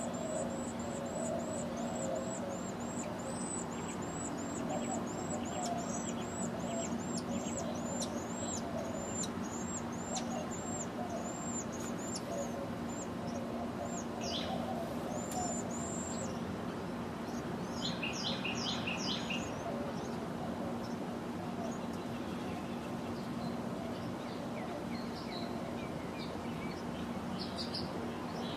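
A small bird calling: a long series of high, thin, arching notes at about two a second, then, after a few scattered notes, a short quick run of lower notes. A steady low hum and noise run underneath.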